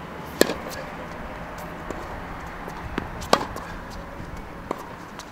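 Tennis rally on a hard court: sharp pops of the racket striking the ball and the ball bouncing, a few seconds apart. The loudest strikes come about half a second in and about three and a half seconds in.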